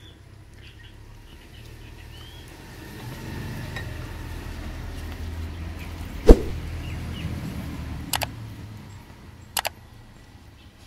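A passing vehicle's low rumble swells over a few seconds and fades away. One sharp click, the loudest sound, comes about six seconds in, and two quick double clicks follow near the end. Faint bird chirps sound near the start.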